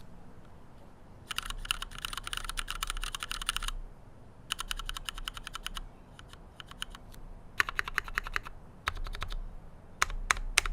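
Typing on an Aegis custom mechanical keyboard with Cherry MX switches and ePBT Cherry-profile keycaps, stock and unlubricated: rapid keystroke clacks in several bursts of a second or two, with short pauses between and a few single strokes near the end.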